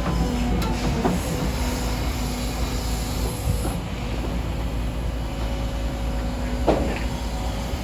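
Caterpillar 325 hydraulic excavator's diesel engine running steadily while digging, with a sharp metal clank about a second in and another near the end.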